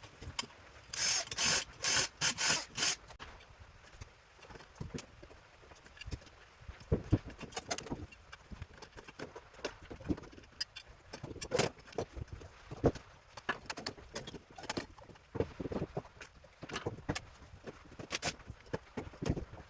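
Tools and loose metal parts clicking, clinking and knocking as a power supply unit is dismantled, with a quick run of four or five short, harsh bursts of noise between about one and three seconds in.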